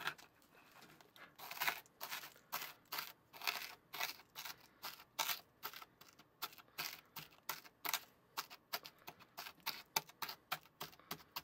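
Dry Rice Krispies cereal mixture being pressed and crushed into a plastic mold with a round plastic pressing tool. The sound is a quiet, irregular run of short crunches and clicks, a few each second.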